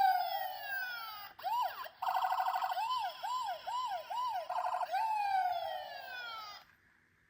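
Electronic siren of a battery-powered toy emergency vehicle cycling through its patterns: a long falling wail, a rapid warble, a run of quick rising-and-falling whoops, a brief warble again and another long falling wail, then it cuts off suddenly near the end.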